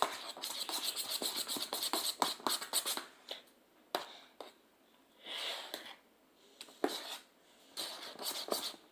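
A spoon scraping and clinking against the inside of a metal cup as ice cream is stirred and mashed: a fast run of strokes for the first few seconds, then shorter bursts with brief pauses.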